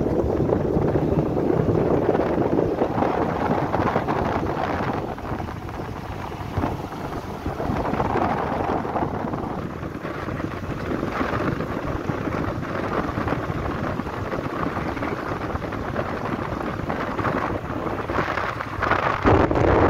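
Wind buffeting the microphone inside a moving car, over steady road noise, swelling louder near the end.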